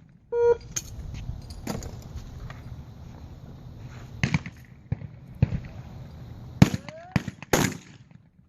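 Shotgun reports at a trap range: a string of sharp shots at uneven intervals, some louder and closer than others, the loudest near the end.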